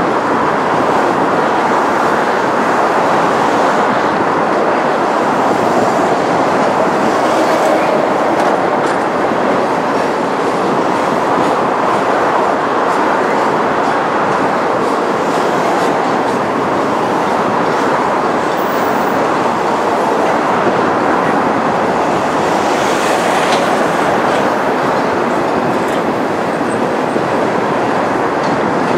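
Long freight train's cars rolling steadily across a railway bridge: a continuous, even noise of steel wheels on the rails.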